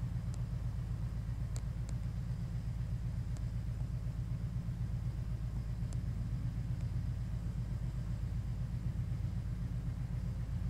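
Steady low outdoor rumble, with a handful of faint, brief high ticks scattered through it.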